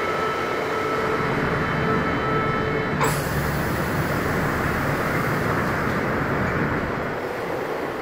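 CBTU Série 900 electric multiple unit running on the line, a steady rolling rumble with a high steady whine over it. About three seconds in the whine stops with a sharp click, and the rolling noise carries on.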